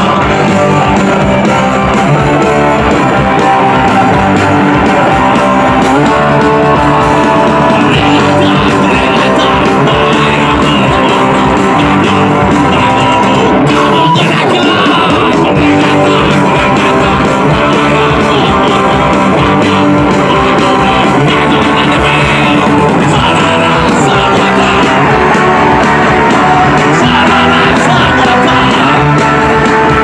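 A live punk rock band playing loud electric guitar music without a break, heard from within the crowd.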